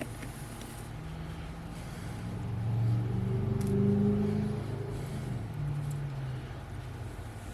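A motor vehicle's engine passing by, growing louder to a peak about four seconds in, then fading with its pitch dropping slightly.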